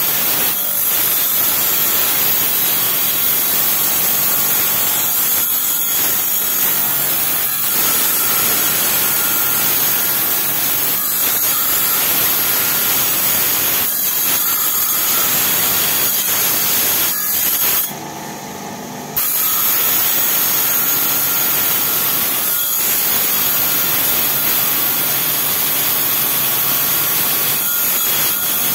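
Motor-driven lapidary grinding wheel rasping steadily against a rough collectible stone held to it by hand with water, shaping the stone before polishing. The grinding dips briefly about 18 seconds in.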